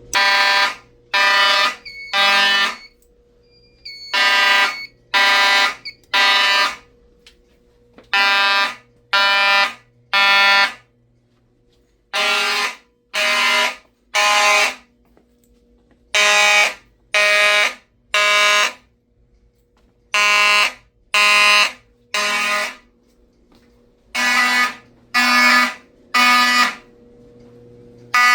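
Fire alarm notification appliances sounding the temporal-three (code 3) evacuation pattern: three short, buzzy blasts about a second apart, then a pause, the group repeating every four seconds.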